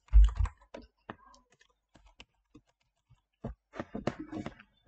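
Scattered clicks of a computer mouse and keyboard, with a denser run of clicks in the last second and a half, and a short thump right at the start.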